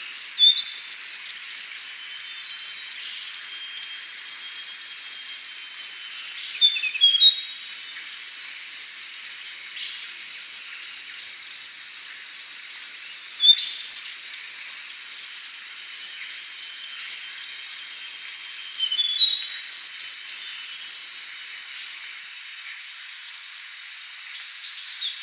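Yellow-bellied warbler singing: four loud phrases, each a quick run of short, clear, high notes that step upward in pitch, coming about every six seconds. Between and under them runs a steady background of fast, high ticking.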